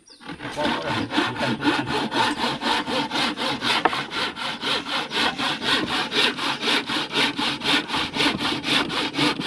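Hand saw cutting through a wet wooden boat frame in quick, even strokes, about four a second, starting about half a second in.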